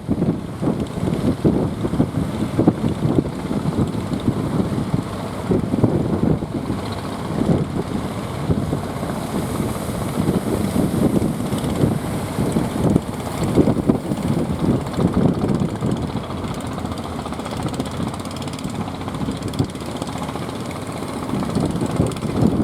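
A motorboat's engine running, with wind buffeting the microphone in uneven gusts.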